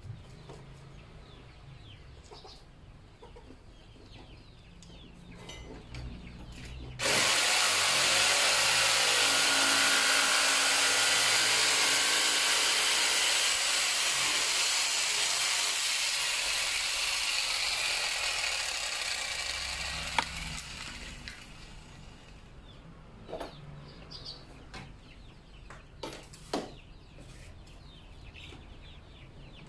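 A power tool or motor switches on suddenly about seven seconds in and runs loudly for about fourteen seconds before dying away. A few sharp knocks follow.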